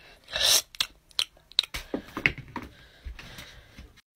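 A person biting and chewing something close to the microphone: a short breathy rush about half a second in, then irregular small crunches and mouth clicks.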